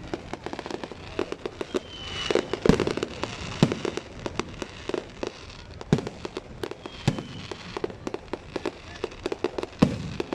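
Fireworks display: a dense run of crackling pops with louder booms every second or so.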